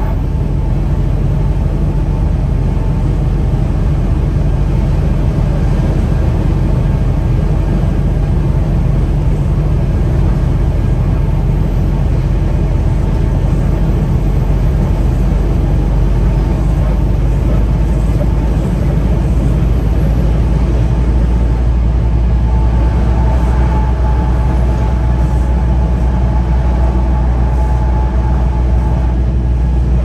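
Peterbilt 579 semi truck running down the highway at a steady speed: a constant low engine drone with road and tyre noise, and a higher whine that grows stronger in the last several seconds.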